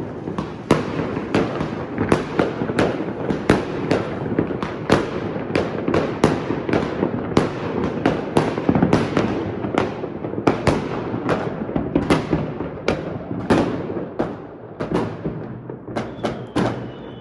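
Many fireworks going off at once: a steady string of sharp bangs, a few each second, over a continuous crackling rumble from other salvos.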